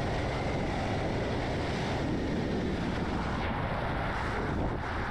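Steady rushing wind noise, an even rush of air with no distinct events.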